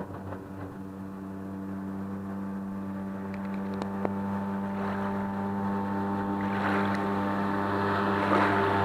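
Salyut-E two-stroke outboard motor running at a steady speed on a small Malyutka-2 inflatable boat, its drone growing steadily louder as the boat comes closer. Splashing water rises under it in the last few seconds.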